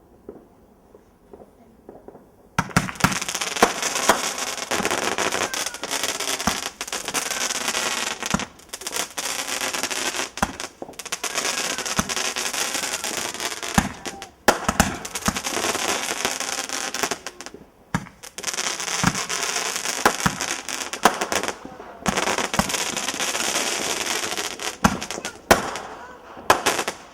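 Fireworks going off: a loud, dense string of crackles and bangs that starts about two and a half seconds in and runs in long bursts with short breaks until near the end.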